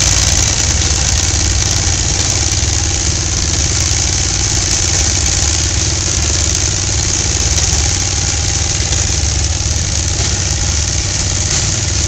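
Air-cooled Wisconsin V-4 engine of a 1946 New Holland Model 76 hay baler running steadily as the baler picks up and bales straw, mixed with the towing tractor's engine.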